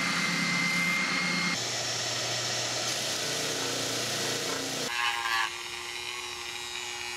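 Power sanding in three quick cuts: an oscillating spindle sander, then a disc sander, then a handheld rotary tool, each motor running steadily with a wooden piece pressed against the abrasive. The sound changes abruptly about a second and a half in, and again about five seconds in.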